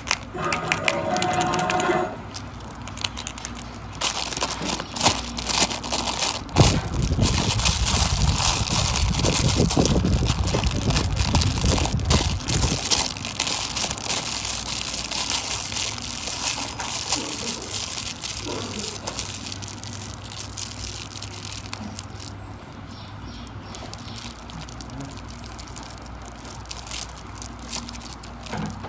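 Hands unwrapping and crumpling crinkly metallic foil wrapping: a dense crackling rustle, heaviest through the middle with some dull handling thumps, thinning to lighter crinkles in the last several seconds.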